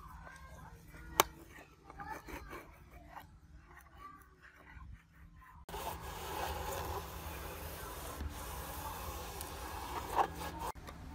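Scraping and rubbing of hand work on a workpiece, with scattered clicks and one sharp click about a second in. About halfway through it switches abruptly to a steadier, louder rasping noise.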